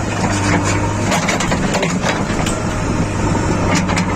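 Heavy diesel engine running steadily, with scattered knocks and clatter over it.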